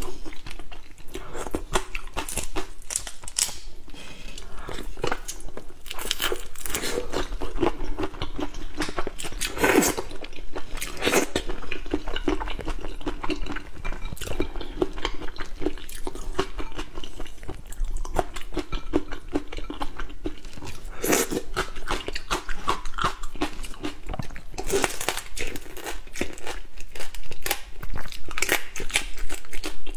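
Close-miked crackling and crunching of a whole large shrimp's shell, broken and peeled by hand, then bitten and chewed, with irregular clicks throughout.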